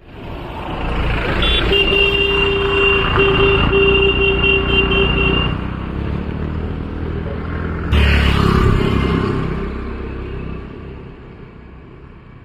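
Road traffic: vehicle engines running, with a vehicle horn sounding in a broken run for about four seconds. About eight seconds in, a motor scooter passes close by, and its engine then fades away.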